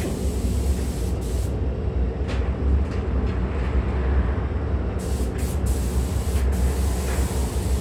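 Compressed-air spray guns hissing on and off as a coating is sprayed onto a car body, over a steady low rumble. The hiss drops out about a second and a half in and comes back about five seconds in.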